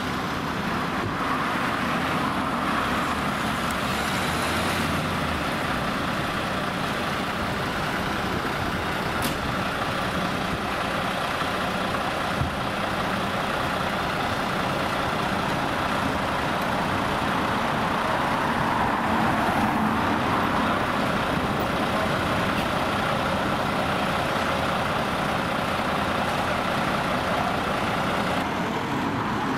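Steady motor-vehicle noise: engines running and road traffic passing, without any siren.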